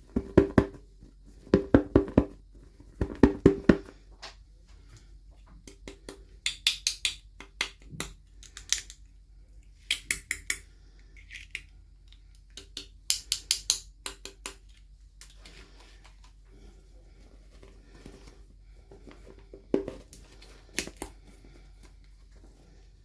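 Small plastic toy pieces and packaging being handled: quick runs of clicks and rattles, then several short bursts of crinkling packaging, and a couple of lone clicks near the end.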